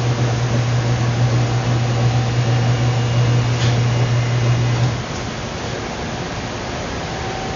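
A steady low electrical hum over a constant fan-like noise; the hum cuts off suddenly about five seconds in, leaving the noise.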